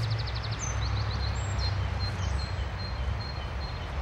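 Small songbirds singing quick trills of short high notes, several times, over a steady low rumble of outdoor background noise.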